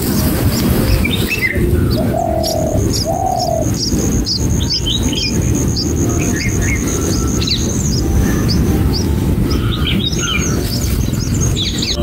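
Bulbul birds chirping at the nest while a red-whiskered bulbul feeds its gaping chicks: many short high chirps scattered throughout. A thin steady high tone runs from about 2.5 to 9 s, two short lower coo-like notes come near 2 and 3 s, and a low background rumble is present throughout.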